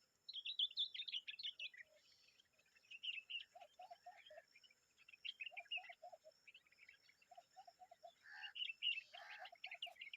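Common babblers calling: rapid bursts of high chirping and chattering notes, with a lower short note repeated in groups of three or four every couple of seconds.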